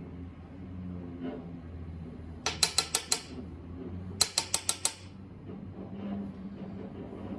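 Two quick runs of about six sharp metallic clicks each, a 3/8-inch drive ratchet's pawl and gear being clicked through, over a steady low hum.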